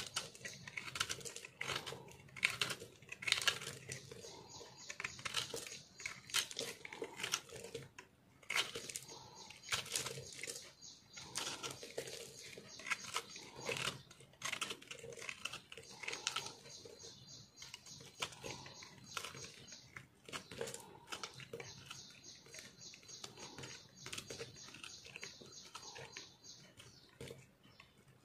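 A knife blade carving a block of re-molded soap pressed together from soap chips, making a dense run of crisp, crunchy crackles as chunks and flakes break off. The crackling is irregular, with brief pauses between cuts.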